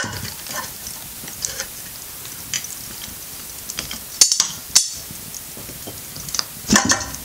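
Metal clinks and knocks of a pressure cooker's lid and handle being worked and fitted, a few sharp knocks a little over four seconds in, near five seconds and near the end.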